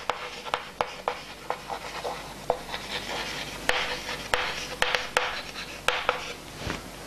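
Chalk writing on a chalkboard: scratchy strokes broken by sharp taps of the chalk on the board, about two a second.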